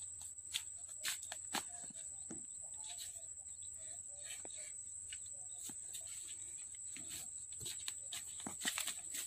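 A bullock being handled and led from its wooden cart on a dirt lane: scattered sharp clicks and knocks over a steady high whine.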